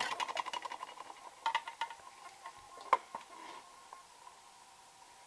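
Small hard parts being handled: a quick run of light clicks and rattles, a few more about 1.5 s in, and one sharp click near 3 s, over a faint steady whine.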